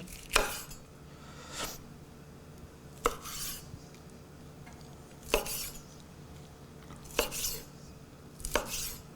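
Metal utensil clinking and scraping against a cooking pot: about six separate knocks spread over several seconds, some with a short ring.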